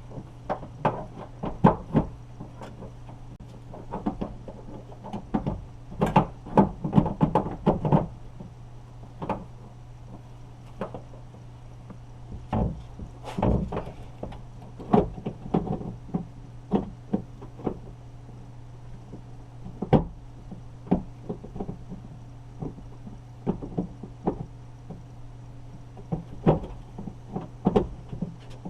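Irregular clicks, knocks and rattles of metal and plastic parts being handled inside a car door while the door lock actuator and latch are fitted, in busy clusters with pauses between. A steady low hum runs underneath.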